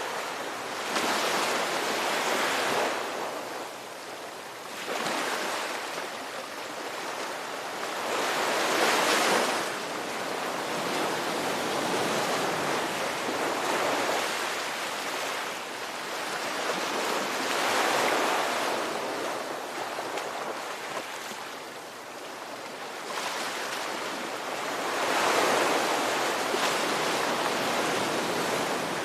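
Ocean waves breaking and washing on a shore, the surf swelling and receding every four or five seconds.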